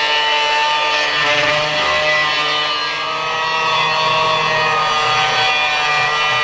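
Angle grinder with a cutting disc running and cutting through sheet steel: a steady whine that shifts a little in pitch as the disc works the metal.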